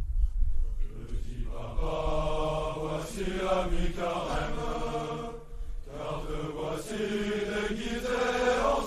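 Music of wordless voices, choir-like, singing long held notes in two long phrases with a short break about five and a half seconds in. A low rumble fills the first second or so.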